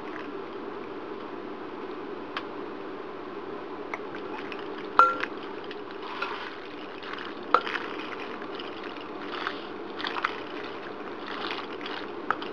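Macaroni being stirred through thick meat sauce in a bowl: soft wet squishing and scraping, with a few sharp clinks of the spoon against the bowl, the loudest about five seconds in, another near the middle and one near the end. A steady low hum runs underneath.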